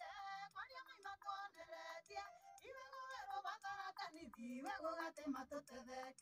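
Campaign song playing: sung vocals over a backing track with a steady beat.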